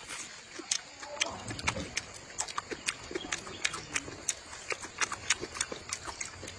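Close-miked chewing: wet smacking clicks of a mouth working through spicy rice noodles, a few a second.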